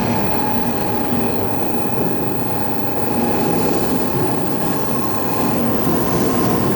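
N700-series shinkansen train pulling into the station: a steady, loud rumble of wheels and running gear with a held whine, which shifts to a slightly higher tone near the end.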